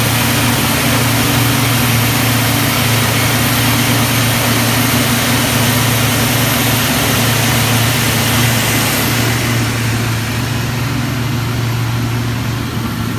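Heavy diesel construction machinery running steadily: a slipform curb-and-gutter machine laying concrete, with cement trucks alongside. The engine drone eases slightly near the end.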